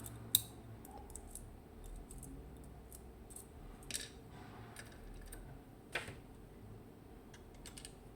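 Light metallic clicks and taps of small lock parts and tools being handled while a Mottura C55 dimple lock cylinder is taken apart. The clicks are scattered and irregular, the sharpest about half a second in, with others near four and six seconds.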